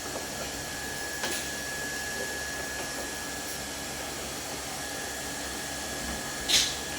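Steady mechanical whirring hum with a thin, constant high tone. A light click comes about a second in, and a sharp, loud snap comes near the end.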